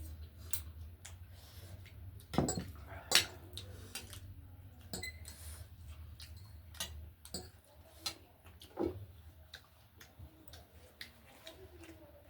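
Utensils clinking and knocking against plates and bowls during a meal, in scattered sharp clicks, the loudest pair a little over two and three seconds in, over a faint low hum.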